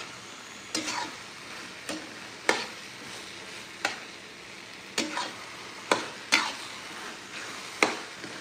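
A metal spatula stirring gongura (sorrel) leaves and chopped tomatoes in a brass pan. About eight sharp scraping clanks of metal on the pan come at uneven intervals, over a steady sizzle of the vegetables frying without added water.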